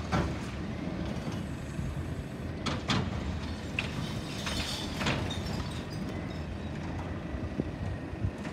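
Front-loader garbage truck's diesel engine running steadily while its hydraulic forks lift a container over the cab to empty it and lower it again. A few sharp knocks come around three and five seconds in.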